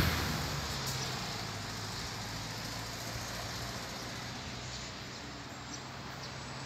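A motor vehicle's engine and road noise: a low, steady hum under a hiss, fading over the first couple of seconds and then holding low.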